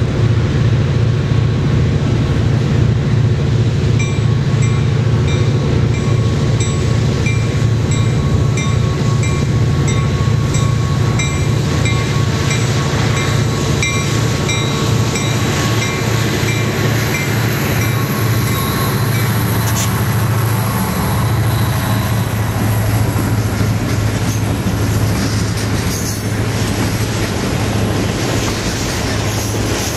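Freight train's diesel locomotives approaching and passing close by with a steady low engine drone, while a bell rings in evenly repeated strokes from about four seconds in until about nineteen seconds. After that the wheels of the passing freight cars rumble and clatter along the rails.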